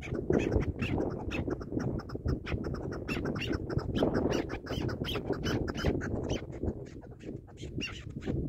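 Chukar partridges calling: a rapid, continuous run of short clucking notes.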